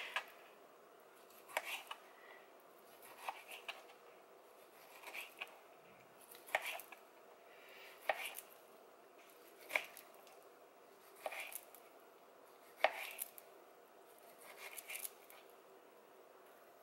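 Kitchen knife slicing raw tuna into sashimi pieces, the blade clicking on the cutting board at the end of each cut, about once every second and a half.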